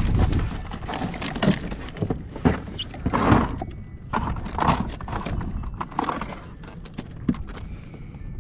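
Irregular hollow knocks and thumps, a few a second at the busiest, from a freshly caught mackerel flapping against the kayak's plastic hull.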